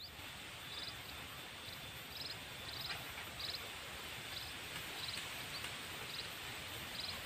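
Outdoor ambience by a small ditch: a steady hiss with a short high chirp repeating about once or twice a second.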